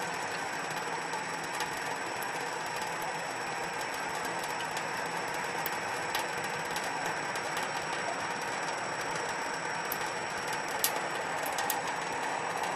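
Thin stream of tap water running from a kitchen faucet into a stainless-steel sink, a steady splashing hiss. A few sharp clicks sound over it, the loudest about eleven seconds in.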